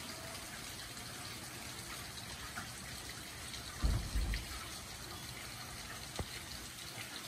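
Steady rain falling and spattering, an even hiss of drops. A brief low thump about halfway through is the loudest sound.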